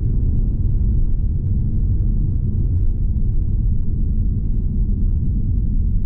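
2021 Lexus LC 500 Convertible cruising, heard from the driver's seat: its 5.0-litre V8 running at a steady light throttle under road and wind noise, a steady low-pitched drone.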